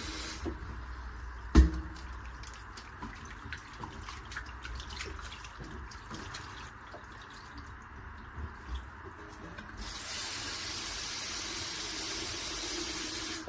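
Tap water running into a stainless-steel bowl of raw pork slices stops at once; a sharp knock about a second and a half in, then small wet splashes and clicks as hands knead the slices in the water to rinse out the blood. About ten seconds in the tap is turned on again and water runs into the bowl.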